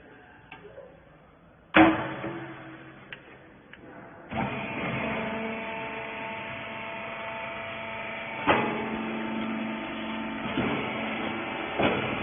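A loud metal clang, then a used-clothes hydraulic baler's motor and pump start about four seconds in and run with a steady hum. Two more metal clanks sound over the hum, near the middle and near the end.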